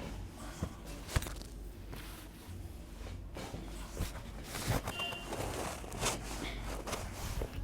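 Soft rustling with a few scattered short knocks and clicks, over a low steady hum.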